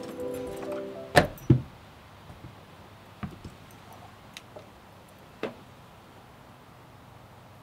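Held music notes end about a second in. Two sharp knocks follow, then a few faint clicks: keys and a front-door lock and handle being worked.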